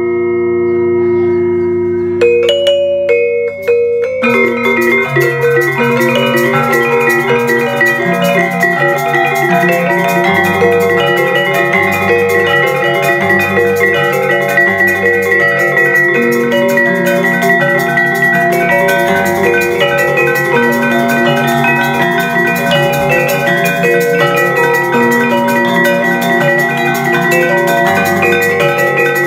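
Balinese selonding ensemble: iron-keyed metallophones struck with mallets, the notes ringing on. A few sparse strokes over ringing notes open the passage, then about four seconds in the full ensemble comes in with a fast, dense, steady pattern of struck notes.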